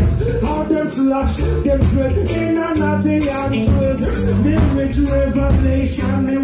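Live reggae band playing, with a heavy bass line under a steady, even drum beat.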